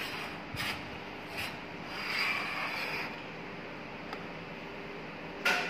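Hand wiping and rubbing on a stainless steel plate: brief scrapes about half a second and a second and a half in, a longer rub around two to three seconds, and a sharper knock near the end, over a steady background hum.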